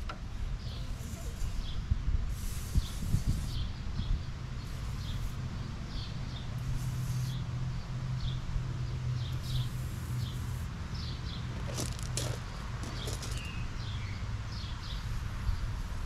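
Aerosol can of Blaster garage door lubricant hissing in about three short sprays, each a second or less, with small birds chirping throughout and a steady low rumble underneath.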